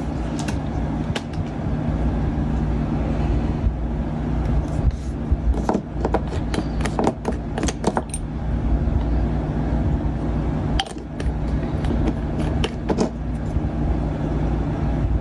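Small plastic scale-model engine parts clicking and tapping as they are handled and fitted together: a cluster of sharp clicks about five seconds in and a few more later. A steady low hum runs underneath.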